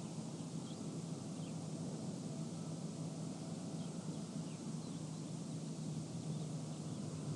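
Steady desert wind ambience under a low, constant hum from generators and construction equipment working in the distance, with a few faint, short high chirps now and then.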